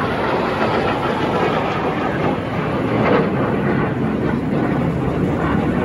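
Jet engine roar of fighter jets flying past overhead, a steady rushing noise that swells slightly about three seconds in.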